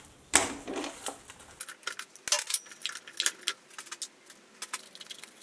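A scattered run of light metallic clinks and taps as steel parts are handled around a small metal lathe's chuck, with one sharper clink about a third of a second in.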